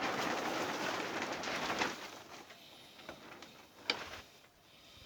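Screwdriver rasping against the metal of a seized bolt as it is twisted in a slot cut into the bolt, for about two seconds, then a single click near four seconds in.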